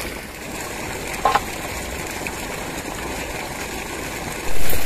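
Water sloshing in a steel bowl as raw chicken feet are washed by hand, over a steady rushing noise; a short tap about a second in and a louder rush near the end.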